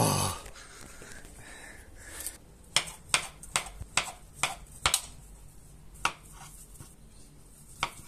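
A kitchen knife cuts slices off a sausage on a wooden tabletop, the blade striking the wood with sharp taps. There is a quick run of about eight taps in the middle, then a few more spaced out. A brief loud sound with a falling pitch comes right at the start.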